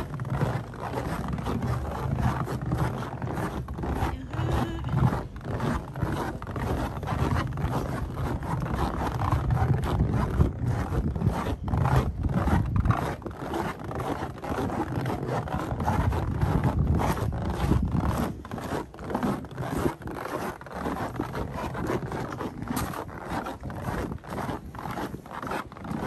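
Footsteps crunching in fresh snow on a walking trail, with wind buffeting the microphone in a low rumble.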